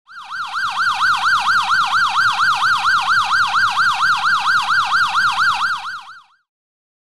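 Police car electronic siren in yelp mode, its pitch sweeping rapidly up and down about five times a second, with a faint low rumble beneath. It fades out about six seconds in.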